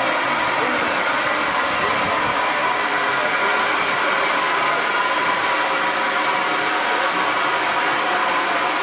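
Steady loud hiss of steam escaping from a 4-8-2 steam locomotive as it eases up to a passenger coach to couple on.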